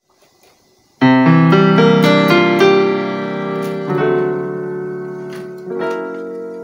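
Piano keyboard playing notes of an overtone scale. After about a second of quiet, seven notes come in quick succession, each held so they pile into a ringing chord. Two further chords follow, one about four seconds in and one near the end, and the sound slowly fades between them.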